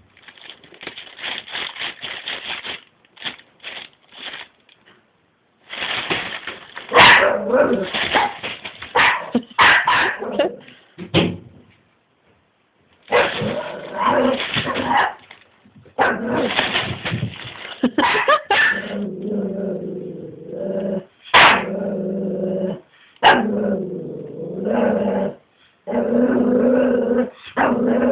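A Pomeranian puppy growls, barks and whines, reacting in fright to a trash bin being moved around it. In the first half, noisy scraping bursts come and go. In the second half, long drawn-out growl-whines dominate, broken by a couple of sharp knocks.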